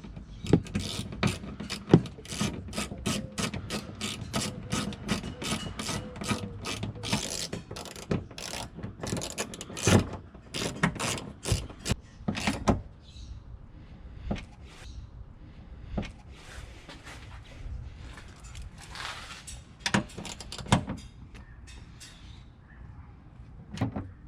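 Hand ratchet clicking as the two 10mm bolts that hold a tailgate spoiler are driven in: a quick, steady run of clicks for about twelve seconds, then slower, scattered clicks for the rest.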